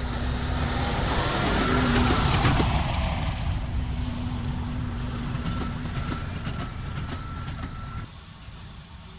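John Deere tractor pulling a New Holland square baler past at work: a steady engine note with knocking from the baler. It grows louder about two seconds in, then fades as it moves away, and drops off sharply near the end.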